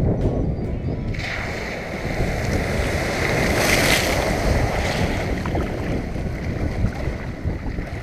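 Wind buffeting the microphone with a constant low rumble. A rushing swell builds about a second in, peaks near the middle and fades away.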